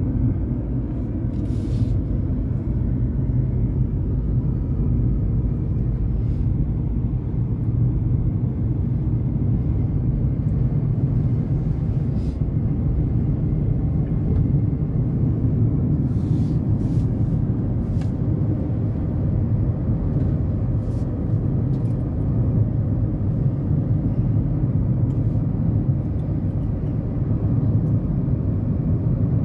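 Steady low road and engine rumble inside the cabin of a moving Honda Element, with a few faint clicks scattered through.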